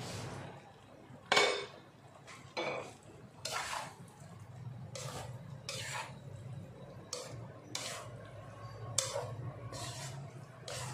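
Spatula stirring and scraping chunky vegetables and kidney beans in a non-stick frying pan: irregular knocks and scrapes against the pan, the loudest about a second and a half in, over a low steady hum.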